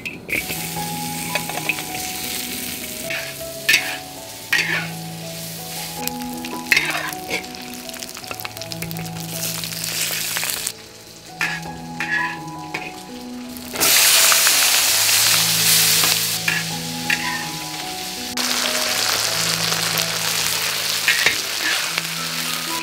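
Food sizzling in hot oil in a wok while being stir-fried, with a metal spatula scraping and clicking against the pan. The sizzle surges loudest a little past the middle and again near the end, as pork belly and snow peas are tossed. Soft background music with slow, held notes plays underneath.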